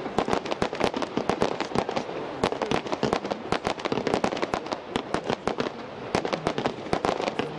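Fireworks going off in rapid succession: a dense run of sharp cracks and bangs, several a second, over a continuous crackle.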